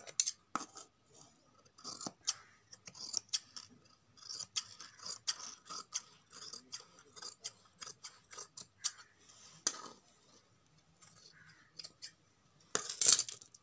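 Scissors cutting blouse cloth in a run of short, irregular snips with the rustle of the fabric, and a louder cluster of snips near the end.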